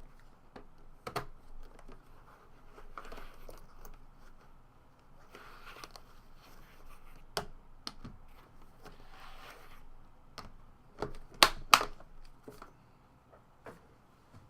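Trading card box packaging being opened and handled: plastic and paper wrapping rustling and tearing, with scattered clicks and taps. Two sharp clicks close together about eleven seconds in are the loudest sounds.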